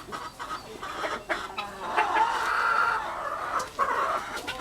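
Chickens clucking, louder and busier for a stretch about two seconds in.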